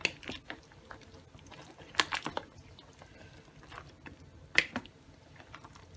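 A wooden spoon stirring boiled peanuts in their broth in a slow cooker: scattered sharp clacks of the spoon and the wet shells knocking together and against the crock, a little cluster about two seconds in and the loudest knock about four and a half seconds in.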